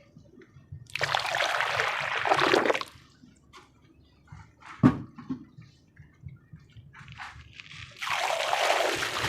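Wet red sand-cement crumbling as it is crushed: two bursts of about two seconds each, with a watery slosh, and faint crackles between them.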